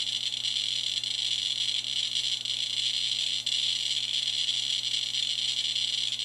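Handheld pancake-tube Geiger counter clicking so fast that the clicks run together into a steady hiss-like buzz: a polonium-210 alpha source held nearly touching the tube, driving the count to around 8,000 counts per minute.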